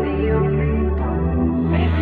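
Background music: held, ambient-sounding chords over a steady low bass.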